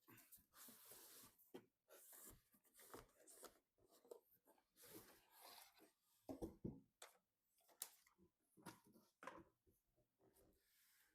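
Faint handling noises of a PC being assembled: irregular rustling and light scraping with small clicks and knocks as parts and cables are handled.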